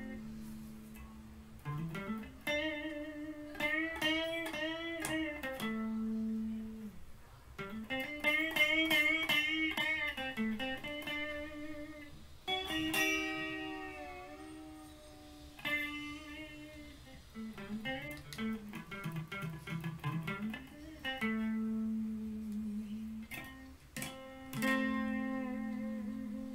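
Electric guitar lead played unaccompanied: single-note phrases with wide vibrato on held notes and string bends gliding up in pitch, broken by short pauses and longer sustained low notes.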